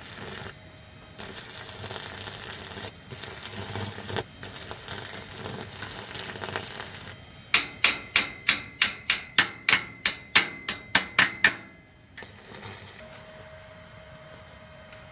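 Rough scraping noise in several spells, then a hammer striking metal about fourteen times in quick, even blows, about three a second, each ringing briefly.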